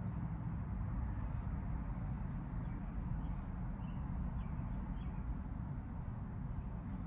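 Outdoor background: a steady low rumble with a few faint, high, short bird chirps scattered through it.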